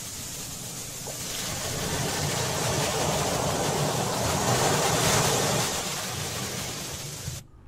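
Surf washing up a sandy beach: a rushing hiss that swells to a peak about five seconds in, then ebbs away and cuts off suddenly near the end.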